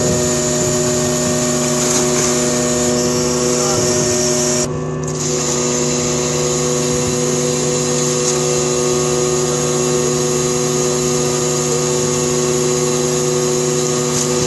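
Shipboard machinery running steadily: a loud drone with several steady hum tones. About five seconds in, one of the higher tones drops out and the sound dips slightly.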